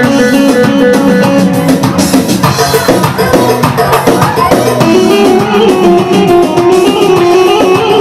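Loud Turkish çiftetelli dance music, a plucked string instrument carrying a moving melody over drums.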